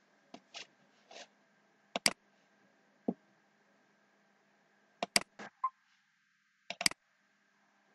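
Computer mouse button clicks, some close together, in clusters about 2, 3, 5 and 7 seconds in, with a few softer clicks from the keyboard near the start, over a faint steady electrical hum.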